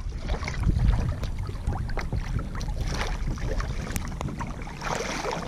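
Wind buffeting the microphone of a camera held just above the sea, making a low rumble, with small slaps and splashes of water close by.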